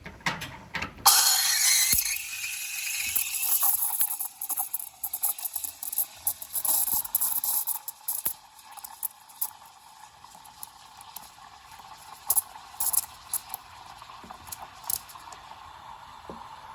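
Espresso machine steam wand hissing: the hiss starts abruptly about a second in, loudest at first, and carries on with irregular sputters and crackles.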